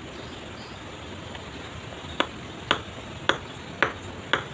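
A river stone being tapped into wet cement mortar with the butt of a tool handle: five sharp taps about two a second, starting about two seconds in.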